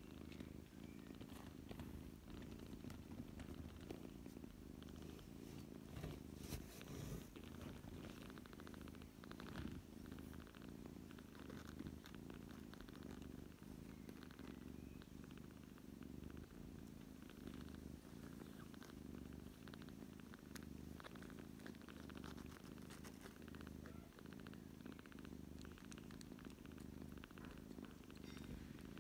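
Ragdoll cats purring softly and steadily as the kittens nurse, with a few faint clicks about six and nine seconds in.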